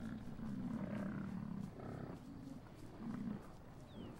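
Bison giving a series of low grunts: one long grunt at the start, then several shorter ones.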